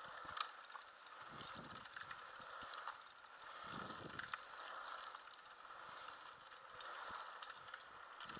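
Faint road noise from Trikke three-wheeled carving scooter wheels rolling on asphalt, with scattered light clicks and a couple of soft thumps.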